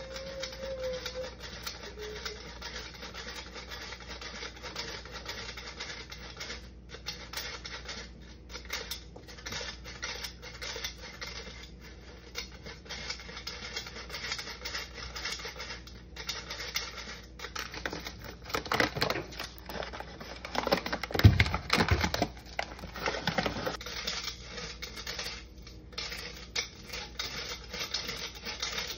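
Metal flour sifter being worked by hand over a mixing bowl: a steady scratchy rasping and fine clicking as flour is pushed through the mesh. About three-quarters of the way through there are a few louder knocks and thumps.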